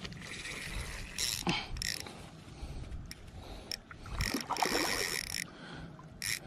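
Spinning reel on a light Ozark Trail setup buzzing in several short spurts, the longest about a second, as line goes on or off the reel while a small channel catfish is fought on light line.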